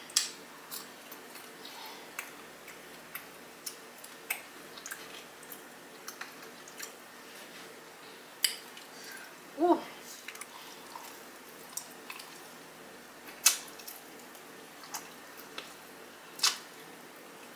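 Close-up mouth sounds of eating chicken wings: scattered wet smacks and clicks from chewing and sucking meat and fingers, with a brief hummed "mm" about ten seconds in. A faint steady hum lies underneath.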